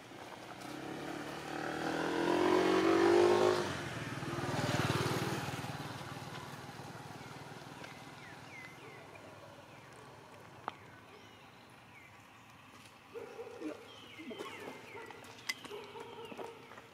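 A motor vehicle passing on the road. Its engine note rises and swells over the first few seconds, peaks between about three and five seconds in, then fades away.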